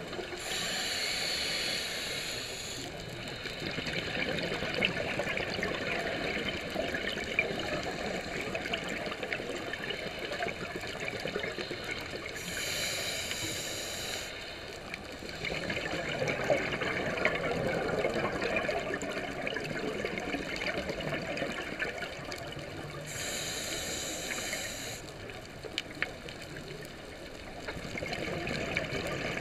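Scuba diver breathing through a regulator underwater, heard through a camera housing: a short hiss of inhalation three times, about every eleven seconds, with a crackling, bubbling exhalation in between.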